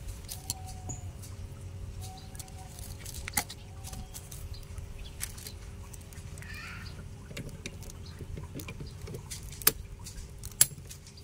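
Steel socket-wrench extension bar and sockets clicking and clinking as they are handled and fitted together, with scattered light clicks and two sharper clicks near the end.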